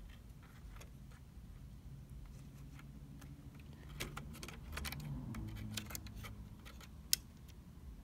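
Scattered small clicks and light rattles of hard plastic and metal laptop parts being handled as a replacement DC jack is aligned and pressed into its port, busiest midway, with one sharper click near the end.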